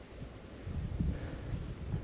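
Wind buffeting the microphone as a low, uneven rumble.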